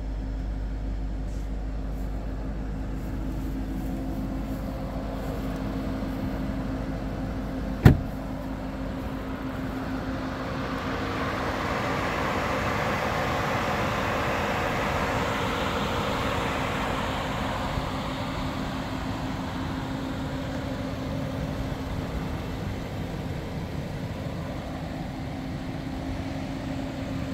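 Audi RS 6 Avant's twin-turbo V8 idling with a steady hum. A single loud thump comes about eight seconds in, and a rushing noise swells and fades in the middle.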